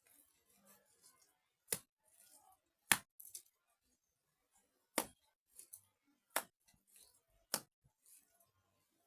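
Wet mud being slapped by hand into cracks in a mud wall: about five sharp slaps at uneven intervals, with fainter handling sounds between them.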